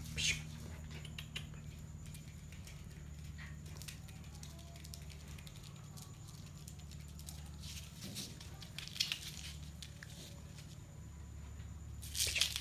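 Puppies' claws and paws pattering and scrabbling on a hard floor as they play-fight, with brief louder scuffles near the start, about eight seconds in, and near the end, over a steady low hum.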